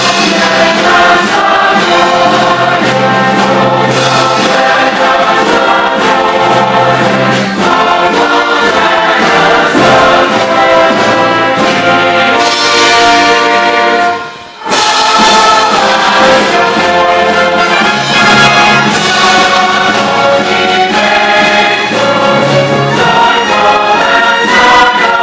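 Live orchestra with brass and a large choir performing Christmas music, loud and full, with a brief drop a little past halfway.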